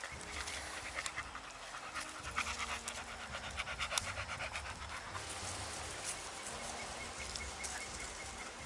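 American Bully XL dog panting, a run of quick breaths that is densest about two to four seconds in.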